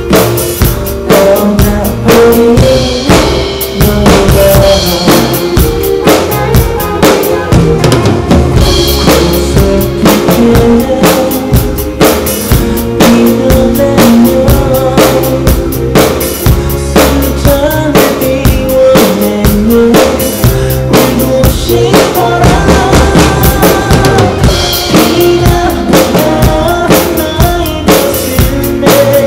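Acoustic drum kit played in a steady beat of kick drum, snare and cymbals along to a backing track of a pop song.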